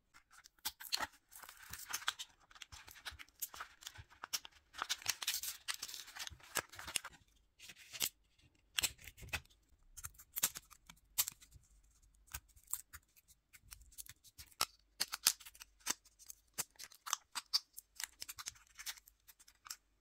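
Scissors cutting open a card-and-plastic blister pack: irregular crackling snips and sharp clicks of the stiff plastic, denser in two stretches early on, then more spaced out.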